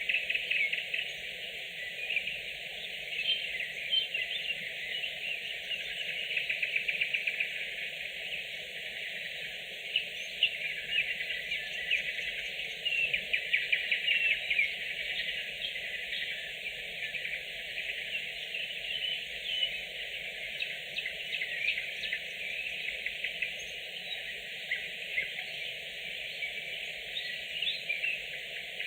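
Several nightingales singing at once: continuous overlapping song of rapid clicking notes and short trills with no pauses.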